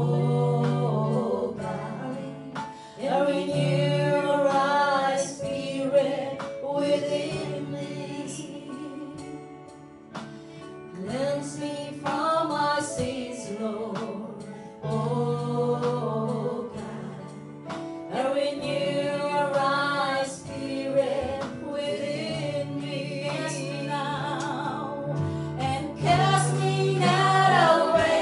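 Women singing a worship song into microphones, backed by held chords on an electronic keyboard, in phrases of a few seconds each.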